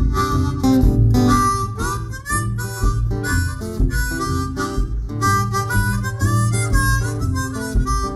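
Harmonica playing a melodic line of short notes, some of them bent, over acoustic guitar accompaniment.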